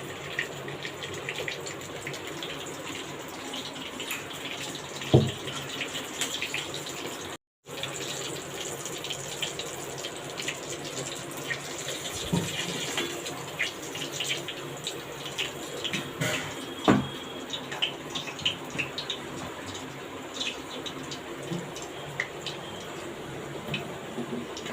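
Chicken pieces frying in ghee and oil in a kadai: a steady sizzle with scattered crackles and a few knocks.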